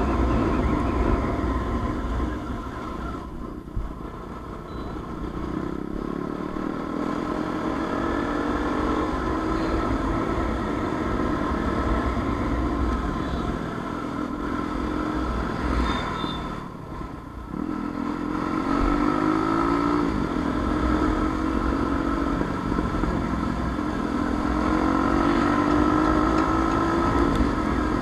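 Motorcycle engine accelerating several times, its pitch climbing and dropping back, once sharply, over a steady low rumble of wind on the microphone.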